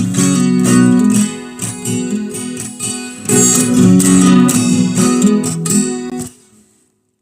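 Strummed acoustic guitar playing the song's instrumental ending; the chords stop about six seconds in and ring out briefly.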